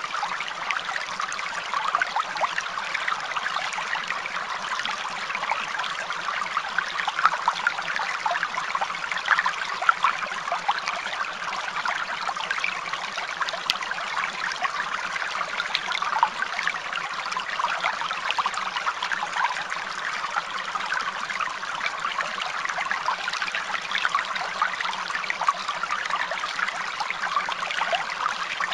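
Steady trickling running water, even and unbroken, full of small splashy crackles.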